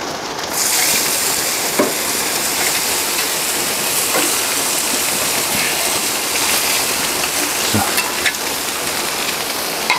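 Boiled potato chunks sizzling as they are laid on a hot cast-iron plancha in a grill at about 220 °C, the sizzle starting about half a second in and then holding steady. A few light knocks, with rain falling in the background.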